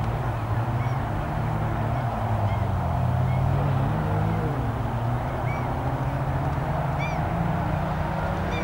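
Audi rally car's engine running hard on a gravel stage, its pitch dipping and climbing again as the car slides through a corner and powers away.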